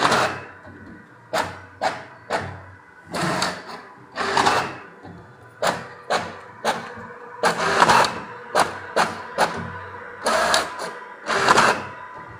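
Brother MFC-J3520 all-in-one inkjet printer printing: a run of short mechanical sweeps and clicks, roughly one or two a second, as the print head travels across the page and the paper advances.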